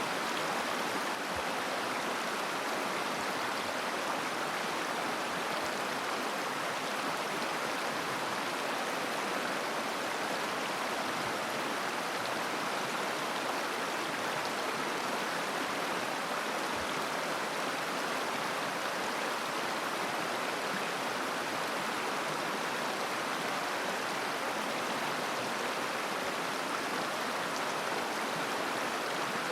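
A flowing river babbling steadily, an even rush of water with no pauses or changes.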